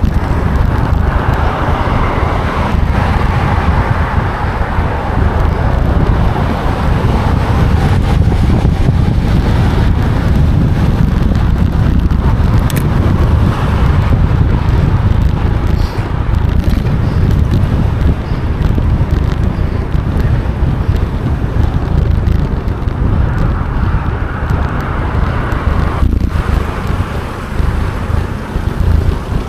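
Very strong wind buffeting the microphone: a loud, unbroken low rumble with a rushing noise on top that swells with the gusts.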